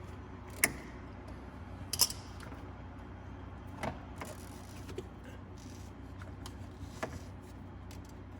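Scattered sharp clicks and knocks of a hand tool working the tight radiator drain plug, the two loudest about half a second and two seconds in, with fainter ones after.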